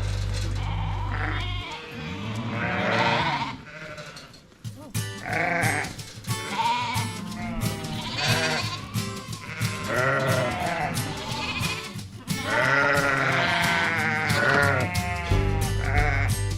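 Sheep and lambs bleating, many calls one after another and overlapping, over upbeat background music.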